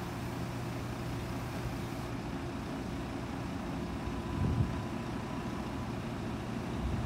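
Volvo B9TL double-decker bus's six-cylinder diesel engine idling steadily, with a brief low swell about four and a half seconds in.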